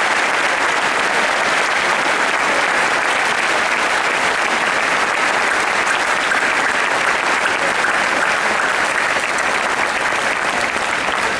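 Sustained applause from a large audience, many hands clapping in a steady, even wash.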